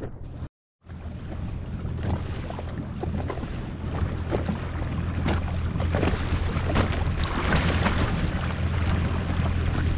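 Jet ski engine running steadily at trolling speed, with wind on the microphone and water rushing past the hull. The sound cuts out completely for a moment just after the start, then comes back and builds gradually.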